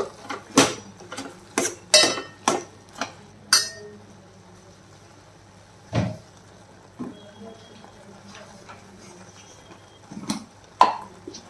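A metal ladle stirring in a metal cooking pot, clinking and scraping against its sides in a quick run of knocks, then a few single knocks as it is set against the rim.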